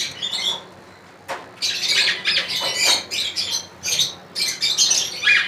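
Many caged lovebirds chattering with short, high-pitched squawks and chirps, with a brief lull about a second in.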